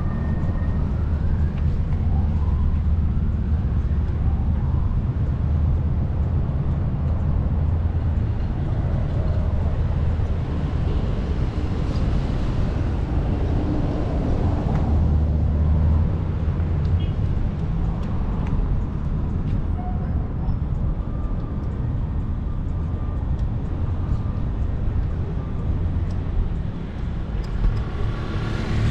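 Steady low wind noise on the microphone of a camera riding a bicycle, with city street traffic alongside.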